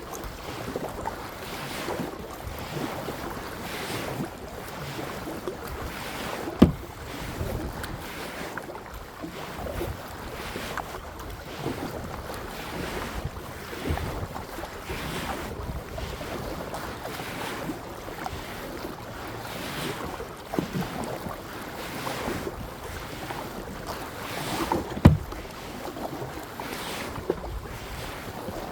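Kayak paddle strokes dipping and splashing in the water in a steady rhythm, about one stroke a second, with wind buffeting the microphone. Two sharp knocks stand out, one about a quarter of the way in and one near the end.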